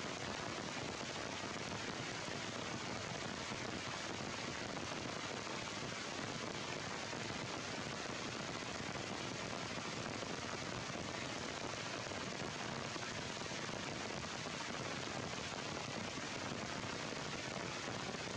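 Heavy rain pouring onto a leafy tree canopy, a steady, even hiss with no change throughout.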